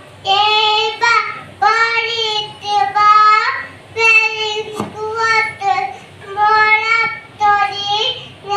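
A young child singing, in short held phrases of about a second each with brief breaths between.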